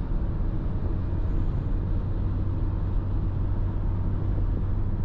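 Steady in-cabin drive noise of a Dacia Jogger 140 Hybrid at motorway speed: tyre and road rumble with an even low hum from its 1.6-litre four-cylinder petrol engine, pulling uphill.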